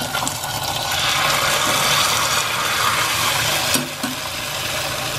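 Hot ghee tempering (tadka) from a cast-iron skillet sizzling as it is poured onto a pot of cooked moong dal. The hiss swells about a second in and eases off near the end.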